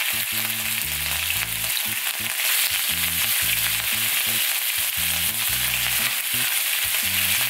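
Venison loin steaks sizzling and spitting in hot oil in a frying pan as more pieces are laid in, over a low bass line that steps from note to note.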